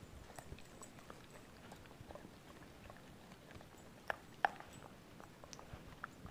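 A dog licking and smacking at peanut butter on a metal spoon: faint wet mouth sounds and scattered small clicks, with two sharper clicks about four seconds in.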